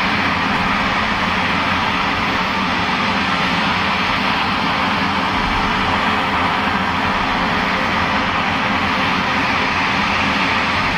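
Sukhoi Superjet 100's twin SaM146 turbofan engines idling on the ground after startup: a steady, even jet rush that does not change.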